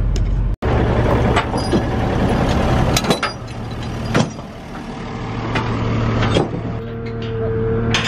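An engine idling steadily, with sharp metal clanks and knocks as chains and binders securing a load on a trailer are worked loose. A steadier, higher hum joins near the end.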